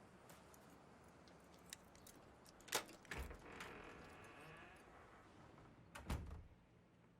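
Faint door handling at a front door: sharp latch and lock clicks, with a dull thump of the door about three seconds in and again about six seconds in.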